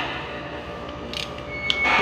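Ratchet wrench clicking in short bursts, one at the start and another near the end.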